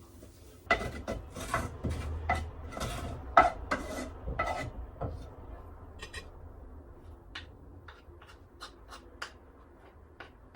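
A utensil scraping and scooping cooked food out of a frying pan into a dish: rough scrapes and clinks for about four seconds, then lighter taps and clicks.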